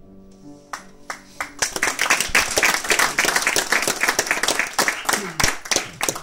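Audience applauding: a few scattered claps that build within about a second and a half into steady clapping. The last notes of the background music fade out under the first claps.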